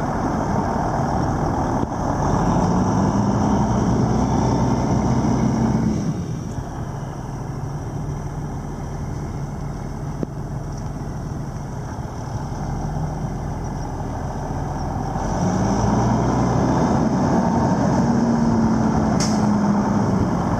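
Cummins N14 inline-six diesel in a Freightliner FLD 120 tractor under load as the truck is driven. Its pitch rises about two seconds in and holds, then falls back to a quieter run. Near the end it climbs again as the truck accelerates back, with one brief sharp click.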